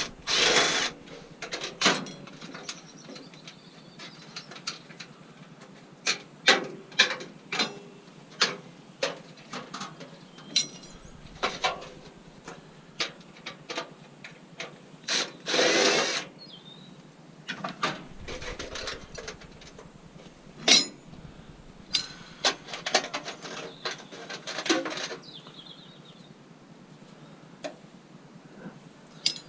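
Scrap metal being handled and taken apart: a string of sharp clinks and knocks, with two louder bursts of about a second each from a power tool, one about a second in and one around halfway.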